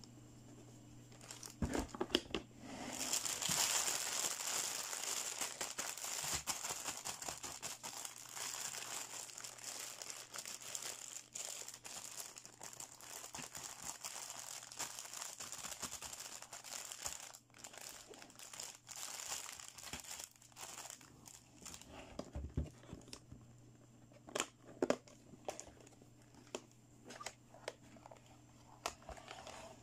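Clear plastic packaging bag crinkling continuously as it is handled. Later it thins out to scattered taps and clicks of hard plastic toy parts and a case latch.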